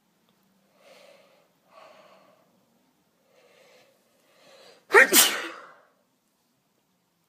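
A woman sneezing from cat allergies: four short catching breaths build up, then one loud, sudden sneeze about five seconds in.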